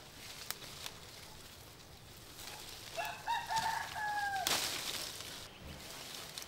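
A rooster crowing once, about a second and a half long, with the call held and then dropping at the end. It is followed straight away by about a second of loud rustling noise.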